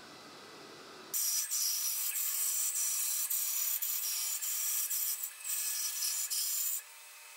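Bandsaw blade cutting along a dark hardwood board, starting about a second in and stopping near the end: a steady high-pitched rasp of the blade in the wood, with faint regular ticks about three times a second.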